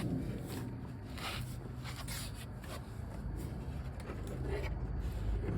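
Soft rustling and scraping of a plastic dashboard trim panel (the knee bolster) being handled and worked loose, a few short scuffs over a low steady hum.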